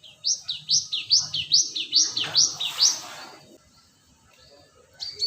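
Cinereous tit (gelatik batu) singing: a quick run of about eight sharp, high notes, each sweeping up and falling, over about three seconds, then one short note near the end.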